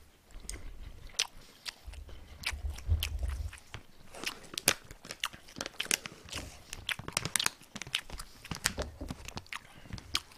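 A person chewing food close to the microphone, with many sharp, irregular wet mouth clicks and crunches. A low rumble comes in now and then, strongest about two to three seconds in.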